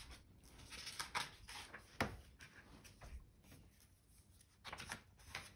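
Pages of a hardcover picture book being handled and turned: faint paper rustles, with a sharp tap about two seconds in and a cluster of rustles near the end.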